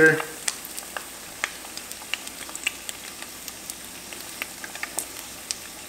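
Eggs frying in butter in a cast iron skillet: a steady sizzle with many small scattered pops and crackles as the whites crisp and brown at the edges.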